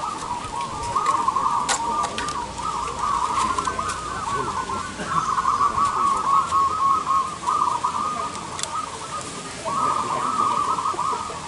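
A chorus of caged zebra doves (perkutut) cooing, with many overlapping rolling coos and no break. A few sharp clicks cut through it.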